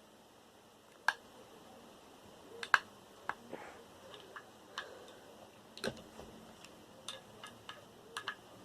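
Scattered sharp clicks and taps of a screwdriver and small metal hard-drive parts being handled during disassembly, about a dozen in all, the loudest a little under three seconds in.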